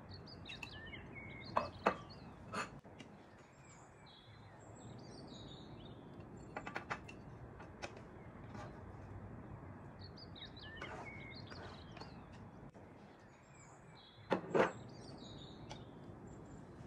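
Small birds chirping in short rising and falling calls every few seconds over a steady low background hiss, with a few sharp clicks and knocks of a spatula against the frying pan and plate as food is served; the loudest knocks come about 14 seconds in.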